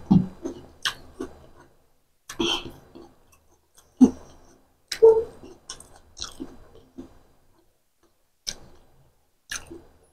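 A person chewing a boiled egg in masala gravy close to the microphone: short bursts of chewing sounds about once a second, some with sharp clicks, separated by brief silences.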